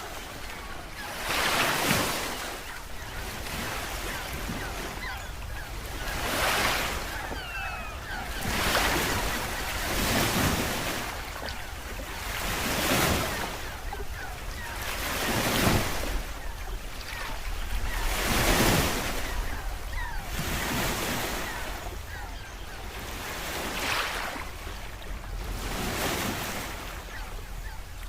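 Water rushing and surging in regular swells about every two to three seconds, like waves washing in.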